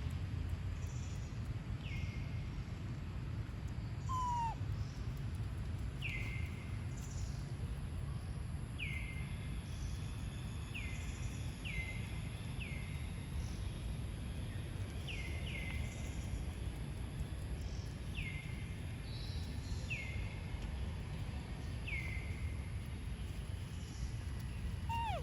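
A monkey giving short, high calls that fall in pitch, repeated every second or two, over a steady low rumble.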